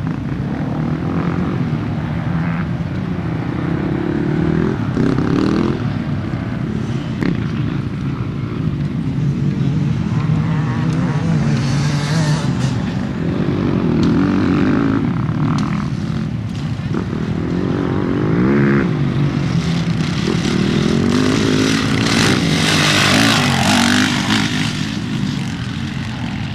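Off-road motorcycle engines running together, revved up and down again and again, with one bike revving harder and louder about two-thirds of the way through.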